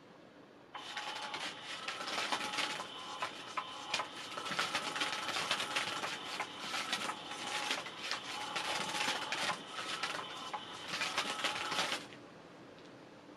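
Catch Me If You Can 2 electric cat toy running: its small motor whirs and rattles as the wand sweeps under the fabric cover, the whine shifting up and down in pitch as it changes speed. It starts about a second in and cuts off suddenly near the end.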